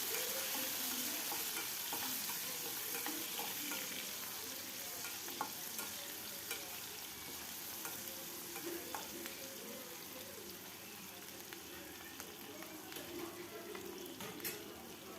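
Chopped carrot and capsicum sizzling in hot oil in a kadai while being stirred, with the spatula clicking against the pan now and then. The sizzle slowly dies down.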